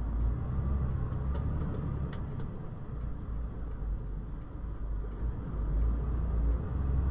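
Steady low rumble of a truck's engine and road noise, heard inside the cab while driving.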